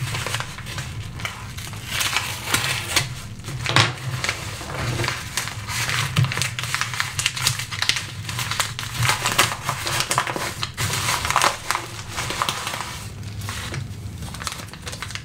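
Packaging being handled and opened by hand: a padded paper envelope and a plastic zip-lock bag, giving irregular crinkling and crackling.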